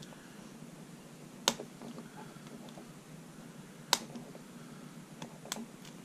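Ace brass 2-inch padlock being picked with a short hook and tension bar: quiet metallic clicking of the pick working the pin stacks, with two sharp clicks about one and a half seconds and four seconds in, and a few fainter ticks near the end.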